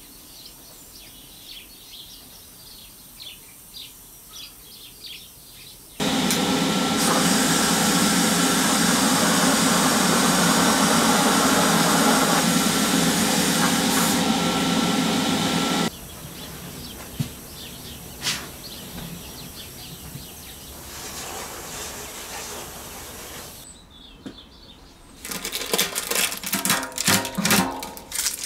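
Paint spray hissing steadily for about ten seconds as grey paint is sprayed onto a hanging round generator cover, starting and stopping abruptly. Near the end come rapid small clicks and rustles from gloved hands fitting a seal around a metal fuel tank's filler neck.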